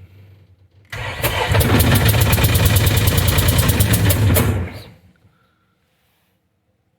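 John Deere 260 skid steer's three-cylinder diesel being cranked on the starter for about four seconds with a rapid, even pulsing, then stopping without catching. The engine has a blown head gasket.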